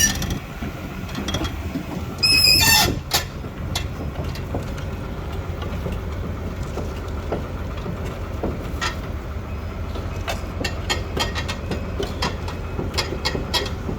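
Sumitomo SH300-5 hydraulic excavator running, its diesel engine a steady low hum. A brief high-pitched metallic squeal comes about two and a half seconds in, and a run of sharp metal clanks and knocks fills the last few seconds.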